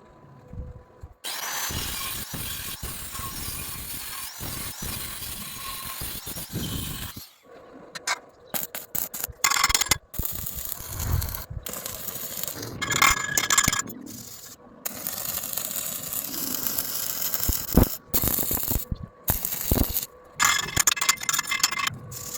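Metalworking sounds in short edited clips: a long steady hiss, then shorter stretches of scraping, clinking and knocking of tools on steel, broken by sudden cuts to silence.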